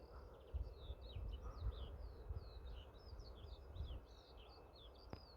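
Songbirds chirping, many short quick notes following one another, with wind rumbling on the microphone.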